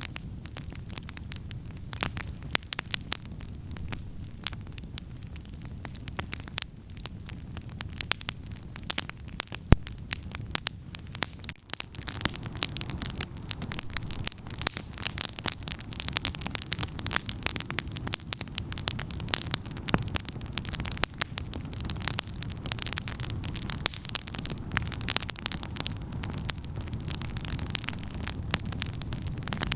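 Wood campfire crackling, with many small sharp pops and one louder pop about ten seconds in, over a low steady rush.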